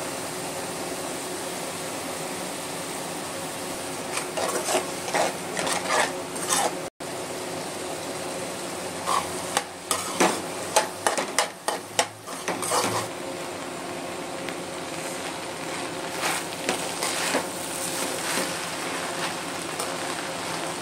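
Vegetables and sauce sizzling in a hot wok as a spatula stirs and scrapes, with runs of quick knocks and clatters of the spatula against the pan; cooked rice is tossed through the sizzling mix.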